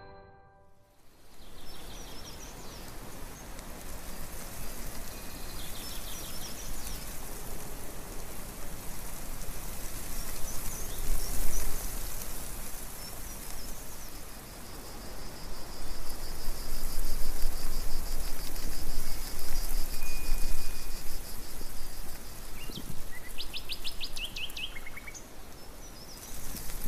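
Birds chirping and calling over a steady rushing hiss. A long, even high trill runs through the middle, and a quick run of chirps comes near the end.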